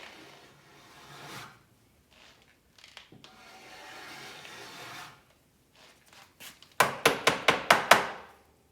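Surform-type 'cheese grater' rasp shaving soft, partly set body filler: two long, slow scraping strokes, then near the end a quick run of about seven short, hard strokes, the loudest part. This is rough shaping of green filler before sanding.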